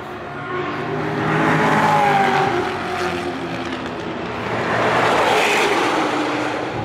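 Supercar engines accelerating, the engine note rising and falling. The sound swells about two seconds in and again near the end.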